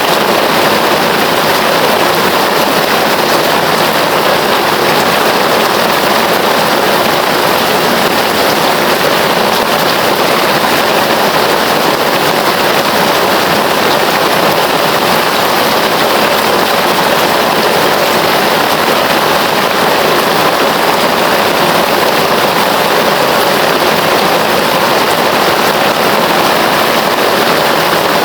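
Heavy rain falling steadily, an even dense hiss with no let-up.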